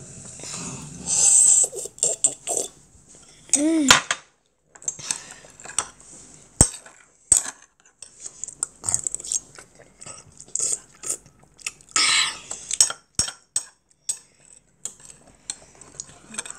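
A metal spoon clinking and scraping against a ceramic bowl of rice in seaweed soup, in scattered sharp clicks, mixed with close-up eating sounds. A short voiced hum comes about four seconds in.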